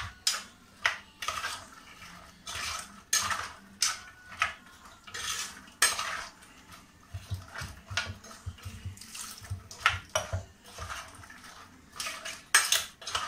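A hand mixing a wet mixture of green peas, potato and ground masala inside a metal pressure cooker. Irregular metallic clinks and knocks come against the pot as it works.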